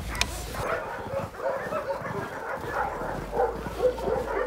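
Dogs barking and yelping in short calls, repeated quickly from about a second in.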